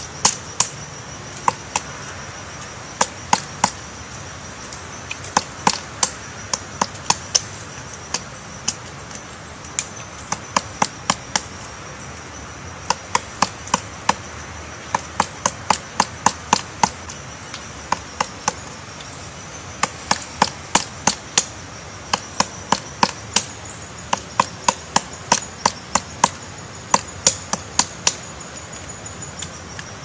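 Pileated woodpecker excavating a cavity in a tree trunk: sharp single pecks into the wood, about two to three a second, in runs of several with short pauses between.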